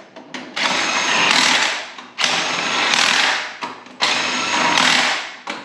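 Impact wrench hammering the lug nuts on a race car's rear wheel during a tire swap, in three runs of about a second and a half each with short pauses between.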